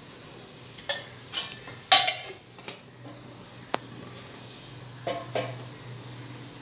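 Steel ladle clinking and knocking against a steel oil pot and the cooking pot while oil is ladled in: a run of separate clinks, the loudest about two seconds in, then a sharp click and two more knocks a little after five seconds as the oil pot is set down on the stovetop.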